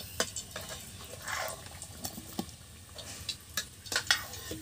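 Hot cooking oil in a wok sizzling faintly, with scattered irregular crackles and pops.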